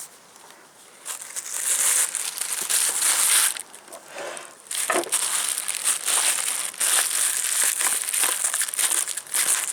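Close rustling and scraping handling noise, as the camera's microphone rubs against chin and clothing. It runs in two long stretches with a short lull in between.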